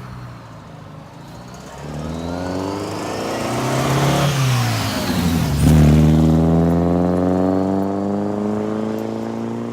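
Restored classic car's engine accelerating hard. The revs climb, drop sharply at a gear change about five seconds in, then climb again in the next gear, loudest just after the change.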